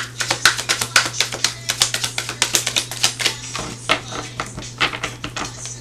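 Tarot cards being shuffled by hand: a fast, uneven run of crisp clicks and slaps, several a second, thinning out after about three and a half seconds. Soft background music plays underneath.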